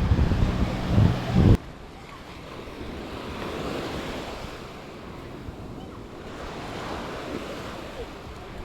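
Low wind buffeting on the microphone cuts off suddenly about a second and a half in. What remains is surf washing onto a beach, swelling and falling back twice.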